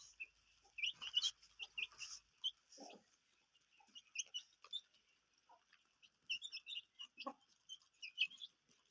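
Aseel chicks peeping: many short, high chirps scattered throughout, fairly faint, with a couple of lower sounds mixed in.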